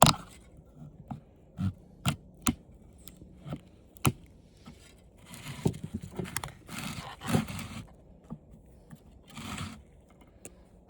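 Plastic parts of an old TV being pried and peeled off with pliers and by hand: scattered sharp plastic clicks and snaps, then longer stretches of scraping and crinkling about halfway through and again near the end.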